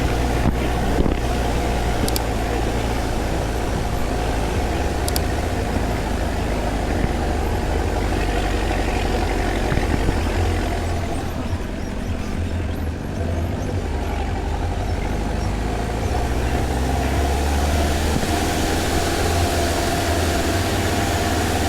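Off-road 4x4's engine running steadily under load while driving over sand, easing off briefly about twelve seconds in, then building again.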